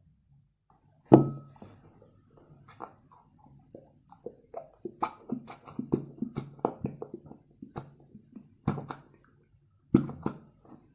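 Short clicks and knocks from slime ingredients, Fevicol white glue and Pond's powder, being handled and mixed in a container, with a sharp knock about a second in and a run of quick sticky clicks in the middle.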